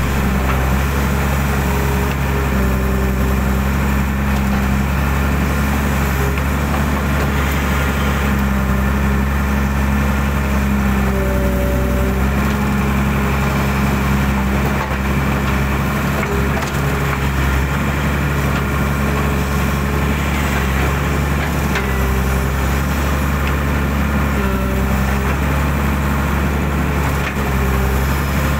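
Hydraulic excavator's diesel engine running steadily under working load, its pitch dipping and rising a little from time to time as the hydraulics are worked.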